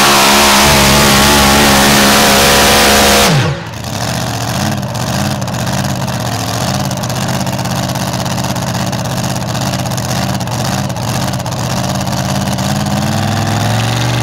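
Supercharged engine of a super modified 4wd pulling truck at full throttle, then cut back sharply about three seconds in as the pull ends, settling to a loud, lumpy idle with a slight rise near the end.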